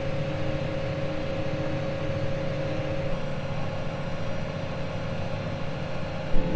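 Tractor running steadily under load while pulling a laser weeder, heard from inside the cab: an even engine hum with a constant mid-pitched whine over it.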